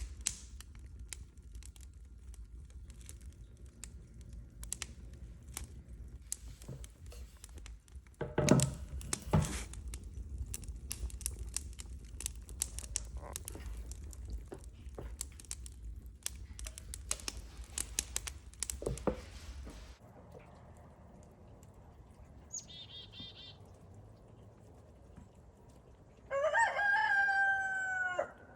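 A rooster crows once, a single call of about two seconds that falls slightly in pitch near the end. Before it come scattered clicks and knocks over a low hum, and a faint short chirp.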